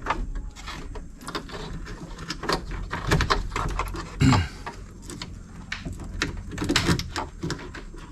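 Irregular clicks, taps and rattles of plastic wiring harness connectors and clips being handled and pushed into place inside a car door.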